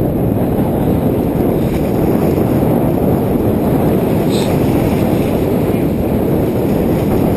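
Steady wind buffeting the microphone, a loud low rumble with no breaks.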